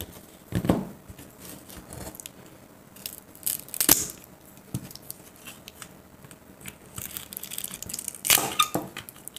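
Small screwdriver prying a glued-in pack of 18650 lithium-ion cells out of a laptop battery's plastic case: irregular scraping, clicking and tearing of the adhesive, loudest about a second in, near four seconds and again near the end.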